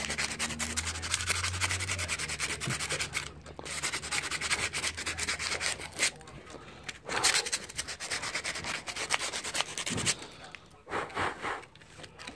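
Hand sanding with a small piece of sandpaper rubbed quickly back and forth over a black scooter handlebar part. The strokes come in runs, broken by a few short pauses.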